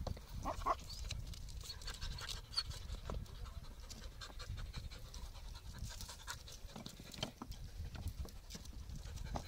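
Podenco canario hunting dogs panting and sniffing hard with their noses in a rock pile, scenting for a rabbit. Stones and paws click and scrape now and then, and there is a brief higher-pitched sound about half a second in.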